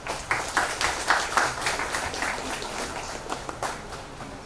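Audience applauding: a small crowd's hand-clapping that thins out and dies away near the end.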